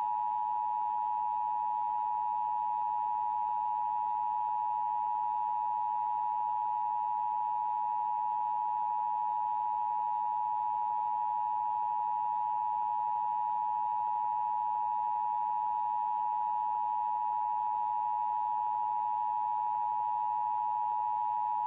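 Emergency Broadcast System attention signal: two steady tones of 853 and 960 Hz sounded together as one continuous, unchanging dual tone.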